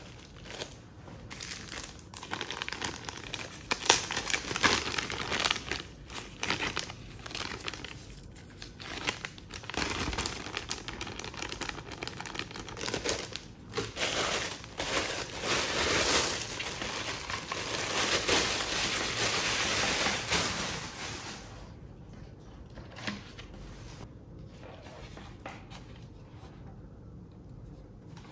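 Thin clear plastic bag crinkling and rustling in irregular bursts as it is worked off a cycling helmet by hand. The crinkling stops about three quarters of the way through, leaving only faint handling sounds.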